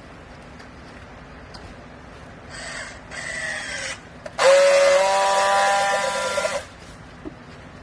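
Hydraulic old-clothes baler working over a steady machine hum: a shorter whine, then a louder whine about two seconds long that holds several steady tones and stops abruptly.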